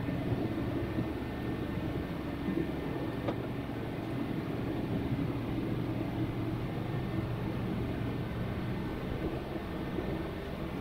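Steady low droning hum of a machine running, even throughout.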